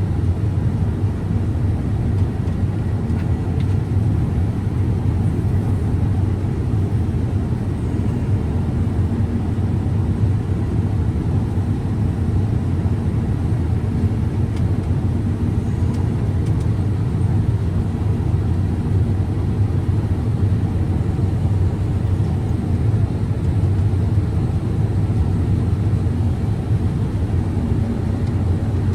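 Combine harvester running steadily while cutting corn: a constant low engine and machinery drone with no change in pace.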